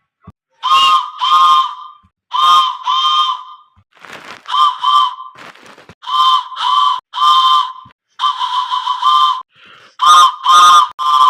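A whistle blown in short, loud toots, mostly in quick pairs, one group about every second, with a wavering run of toots a little past the middle.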